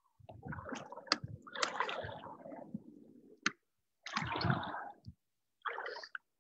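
Kayak and paddle in shallow water at the bank: irregular sloshing and splashing with a few sharp knocks, as the paddler pushes the boat off with the paddle.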